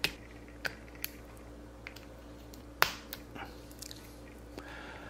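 Small plastic clicks and snaps from a Rudy Project Rydon sport sunglasses frame and its prescription optical clip as the clip is pushed into place inside the frame: about eight sharp clicks, the loudest nearly three seconds in.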